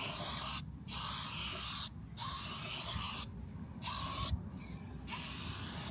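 Aerosol can of silver spray paint hissing in a series of short bursts, about five sprays with brief pauses between them.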